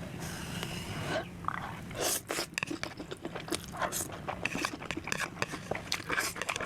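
A person eating noodles close to the microphone: slurping and chewing, with many short, irregular wet smacks and clicks from about two seconds in.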